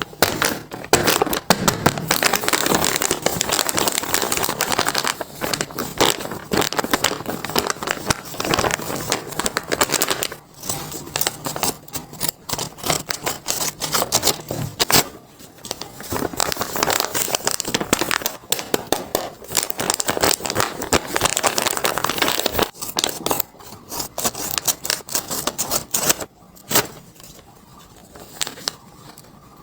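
Paper crinkling and crackling as a handmade paper blind bag is unwrapped and unpacked by hand, in dense stretches broken by a few short pauses, quieter near the end.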